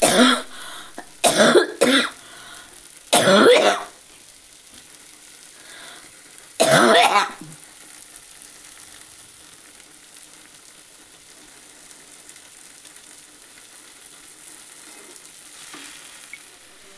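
A person coughing and sneezing: five loud, explosive bursts in the first seven seconds, the last two longer than the others.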